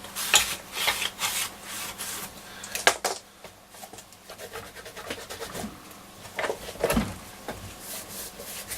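Wet wipe rubbing and scrubbing over a grimy transistor radio's case, in a run of short strokes that come quickly at first and more sparsely later.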